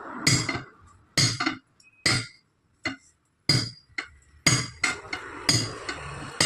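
Hammer blows on steel wheel-and-tyre parts, about nine sharp ringing metallic clanks at uneven intervals, as a 700-15 tyre is worked off its rim.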